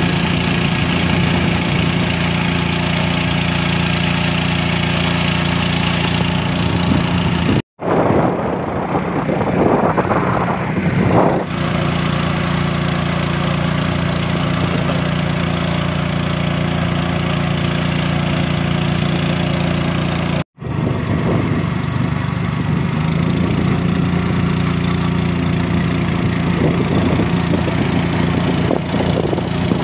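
A wooden motorboat's engine running steadily while the boat is underway, a continuous low hum. The sound cuts out for a split second twice.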